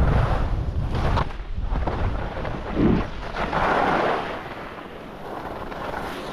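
Wind buffeting the microphone as it moves down a ski slope, with the hiss and scrape of edges sliding over packed snow. The heavy buffeting stops about a second in, a louder scrape comes about three to four seconds in, and the sound is quieter near the end.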